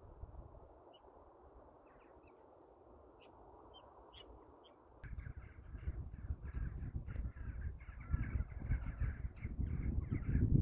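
A flock of crow-family birds cawing. At first there are only scattered calls; from about five seconds in, many birds call at once in a dense chorus over a low rumble.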